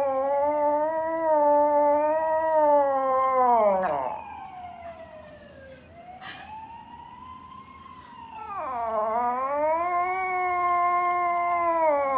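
Poodle howling in long, wavering calls: one long howl over the first four seconds, a fainter rising-and-falling call around the middle, and a second long howl starting about eight seconds in.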